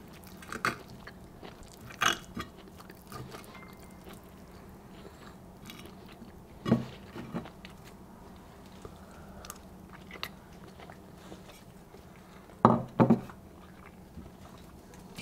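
A person eating in a small room: quiet chewing broken by a few short, sharp clicks, coming in pairs, the loudest pair near the end.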